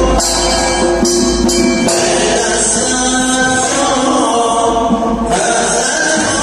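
Zurkhaneh morshed chanting verses to percussion accompaniment in a held, sung voice, keeping time for the athletes' exercise, with a few sharp strikes in the first two seconds.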